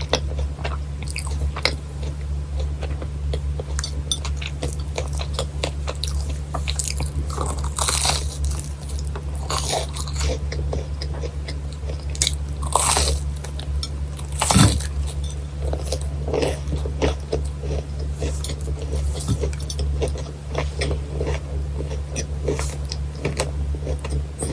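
Close-miked biting and chewing of crisp fried churros: crunching with many small crackles, and one sharper crunch about two-thirds of the way through. A steady low hum runs underneath.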